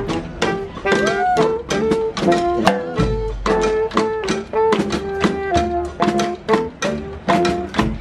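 Brass street band playing live: saxophones and sousaphone carry the tune over a steady, quick drum beat.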